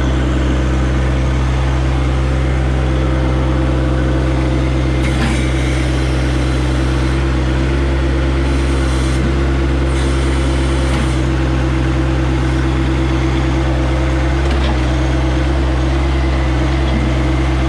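John Deere 1025R compact tractor's three-cylinder diesel engine running steadily.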